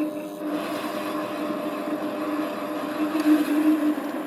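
Variable speed mini lathe's 550-watt motor and gearing running under load while a high-speed steel tool takes a deep cut in cold rolled steel: a steady humming whine with the hiss of the cut over it. It gets louder around three seconds in as the cut deepens toward 25 thou at the next step of the bar.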